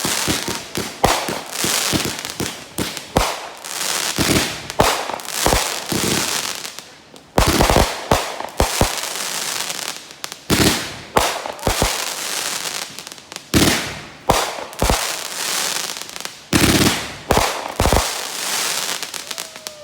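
Aerial fireworks bursting overhead in rapid succession: a dense barrage of sharp booms, each followed by a fading crackle, several a second at times.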